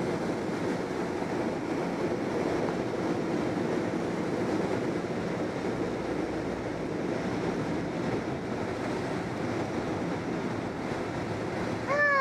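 Steady rush of air streaming past a glider's cockpit canopy on the landing approach, heard from inside the cockpit. Right at the end a child's voice cries out, sliding down in pitch.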